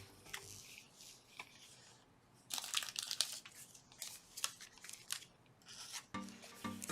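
Plastic wrapper of a trading card pack crinkling and tearing as it is opened, in a run of short scratchy crackles through the middle. Background music comes in near the end.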